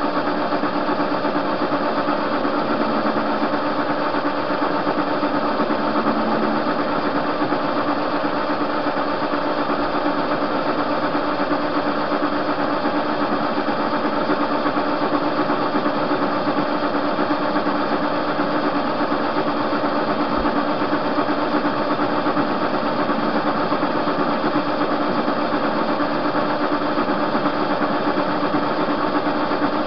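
TV-16 metal lathe running steadily, its motor and gear train giving an even mechanical hum with a few constant tones.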